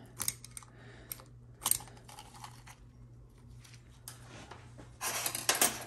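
Light metal clicks and ticks of a pick working in a GM TH400 planetary gear train as the selective washer is picked out, with one sharper click a little under two seconds in. Near the end comes a louder, short scraping rustle lasting under a second.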